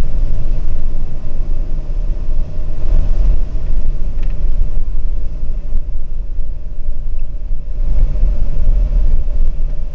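Vehicle driving on a sandy dirt track, heard from a camera on its bonnet: a loud low rumble of engine, tyres and wind buffeting the microphone, rising and falling unevenly.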